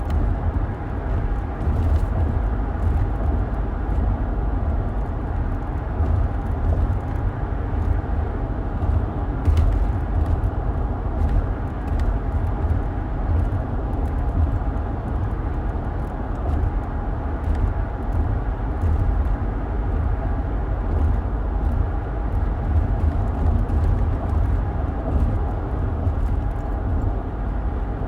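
Car driving steadily, heard from inside the cabin: a continuous low road and engine rumble with a few faint light ticks.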